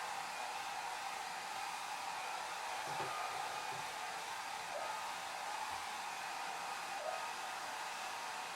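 Hair dryer running steadily: an even rush of blown air with a faint motor whine, its sound sitting mostly in the upper range with little low rumble.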